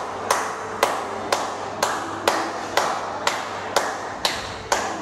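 One person clapping hands at a steady pace, about two claps a second, each clap ringing briefly off the hard walls and floor of a large hall. The clapping sets off a sound-activated 'clap tree' light display.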